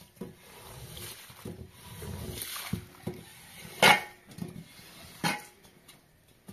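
Long-handled squeegee scraped back and forth over a soaked rug, a run of wet scrubbing strokes, with two sharp louder knocks, one about four seconds in and one just past five seconds.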